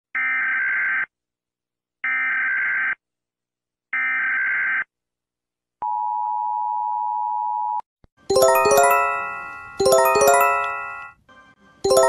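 United States Emergency Alert System alarm: three identical warbling digital SAME header bursts of about a second each, then a steady two-second attention tone. From about eight seconds in, a repeating bright chime of several ringing, fading notes starts: a Japanese emergency alert.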